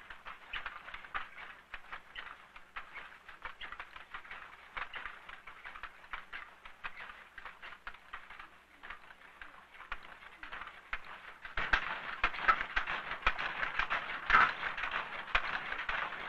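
Wooden silk hand looms clattering: a quick, uneven run of sharp wooden clacks that grows louder about twelve seconds in.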